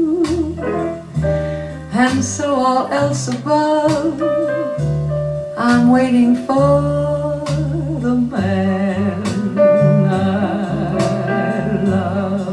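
Female jazz vocal with instrumental accompaniment, played from CD over loudspeakers driven by a Yamaha HMA-9500MK2 power amplifier. The singer's line wavers with vibrato over a bass line that steps from note to note.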